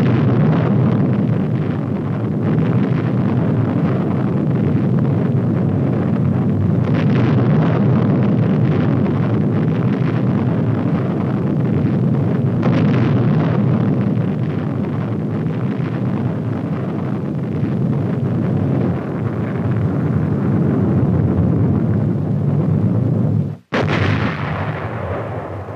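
Atomic bomb test explosions: a sudden blast, then a long, deep rumble that keeps going. Near the end it cuts off sharply, and a second blast starts and fades.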